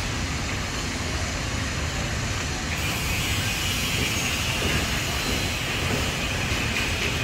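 Steady construction-site background noise: a low rumble throughout, with a higher hiss joining about three seconds in.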